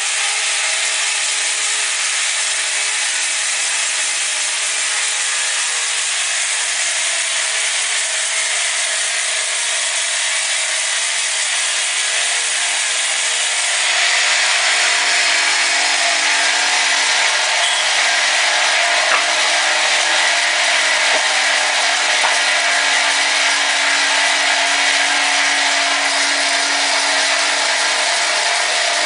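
Sawmill saw running and cutting wood: a loud, steady sawing noise that grows louder about halfway through.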